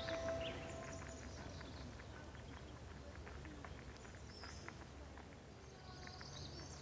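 Faint forest ambience: small birds chirping in short clusters over a low steady rumble, with light footfalls crunching on a gravel trail. A held music note fades out about half a second in.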